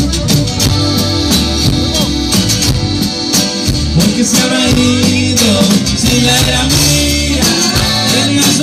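A live norteño band playing loud, amplified through a PA: button accordion, guitar and drums, with a man singing.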